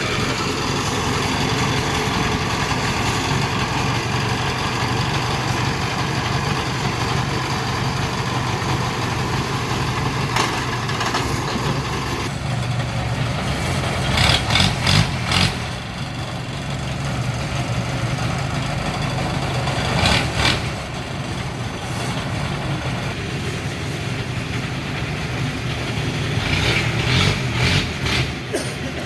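Diesel engine running steadily at low revs, with a few short, louder sharp noises breaking in, a cluster about halfway through and another near the end.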